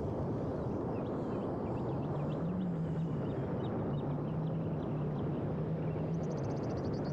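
FPV quadcopter's electric motors and propellers running in flight, a steady low hum that rises briefly a couple of seconds in and then holds, under a constant rush of wind noise.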